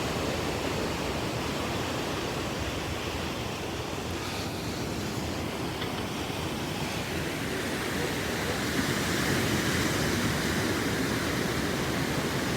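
Ocean surf washing onto a beach: a steady rushing of waves that swells louder about two-thirds of the way through.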